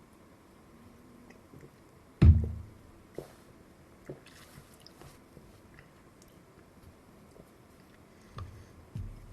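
Small objects being handled on a workbench: one loud thump about two seconds in, then scattered light clicks and taps, a brief soft hiss around the middle, and a couple of softer thumps near the end.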